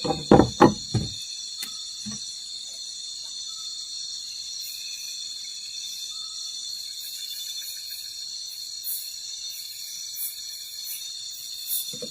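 Steady high-pitched chorus of night insects such as crickets, several shrill tones held unbroken, with a few loud knocks within the first second.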